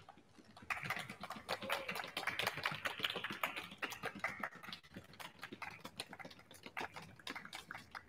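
Applause from a small group of listeners: sparse hand clapping that starts just under a second in, is busiest in the first few seconds and thins out toward the end.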